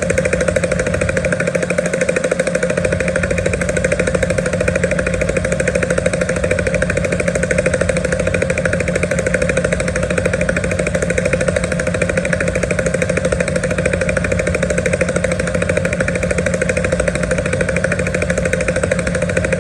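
Bell UH-1 'Huey' helicopter running steadily: the rapid, even blade slap of its two-bladed main rotor over a constant engine tone.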